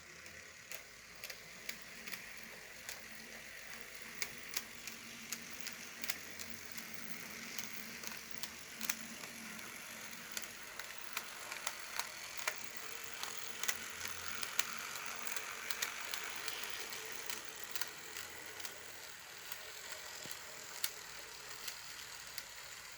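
N scale model train running past: a faint whir from the small motors of Bachmann Spectrum Dash 8 locomotives, with many irregular clicks from wheels on the track.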